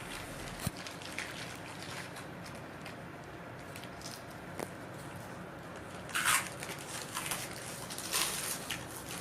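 Faint crunching of potato chips being eaten, with small clicks throughout and a few louder crinkles of the chip bags in the second half.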